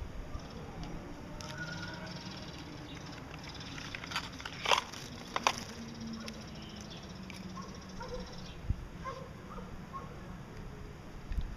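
Gouldian finches giving short, faint chirps, with a few sharp clicks clustered about halfway through.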